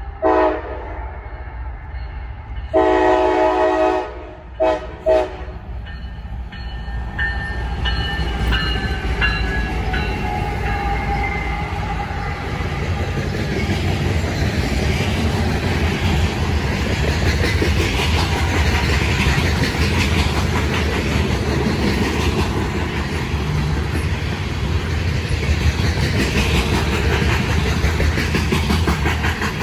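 CSX SD70AH diesel locomotive sounding its multi-chime air horn in the first five seconds: a short blast, a long blast, then two quick short blasts. Then the grain train of covered hopper cars rolls past close by, with a steady rumble and wheels clattering over the rail joints.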